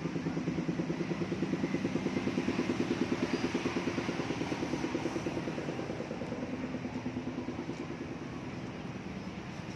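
A small vehicle engine running with a quick, even putter. It swells to its loudest about three seconds in, then slowly fades as it moves away.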